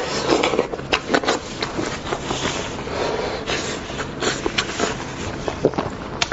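A person eating meat off a spicy lamb's head, picked up close by a clip-on microphone: wet chewing, sucking and lip-smacking with many irregular sharp clicks.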